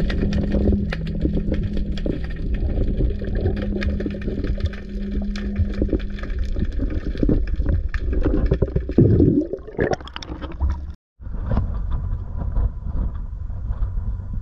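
Underwater sound from a diver's camera just below the surface: constant crackling and clicking over a low rumble, with a steady low hum that stops about six seconds in. Around nine seconds a loud rush of water and bubbles as the camera comes up; after a short cut, wind and water noise above the surface.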